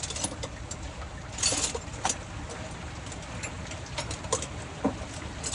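Scattered metallic clinks and knocks of hand tools on a junkyard vehicle's parts, over a steady low rumble, with a short hiss about a second and a half in.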